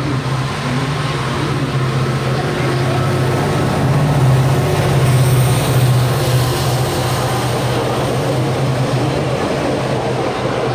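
Passenger train passing through a station: the locomotive's engine hum is loudest as it goes by about four to six seconds in, with a thin high whine, then the coaches keep rumbling past steadily.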